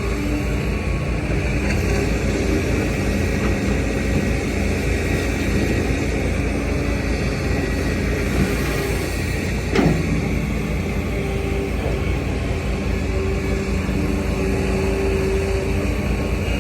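Heavy diesel machinery, an excavator with dump trucks, running steadily, its engine tones shifting slightly as it works. There is one sharp knock a little past halfway.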